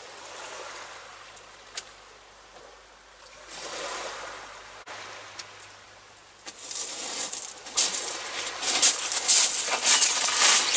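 A soft wash of sea waves on the shore, swelling once. From about six seconds in, loud rustling and crackling of clothing and hands close to the microphone, growing louder as the camera is handled.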